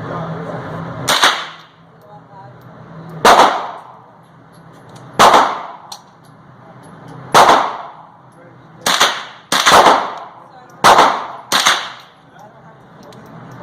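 Gunshots at a shooting range, eight in all, each with an echoing tail. The first four come about two seconds apart, then the last four come in two quicker pairs.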